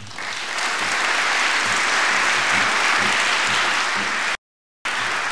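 Large audience applauding steadily after a speech. The applause cuts out completely for about half a second near the end, then carries on.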